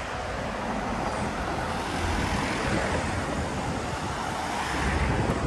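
Road traffic: the steady rumble of vehicles going past on the street.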